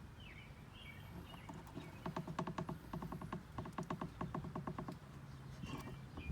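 Motor oil glugging out of a jug as it is poured into the engine, in runs of quick rhythmic gulps about nine a second, broken by short pauses.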